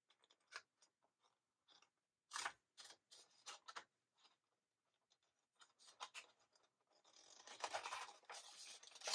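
Faint crinkling and rustling of glossy photo paper being handled and pressed down by hand, at first a few scattered soft crinkles and taps, then steadier rustling over the last two seconds.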